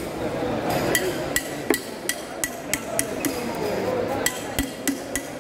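A metal rod tapping the spine of a fish knife again and again, driving the blade through a large fish's head. The rapid metallic taps come about three a second, each with a brief ring, and start about a second in.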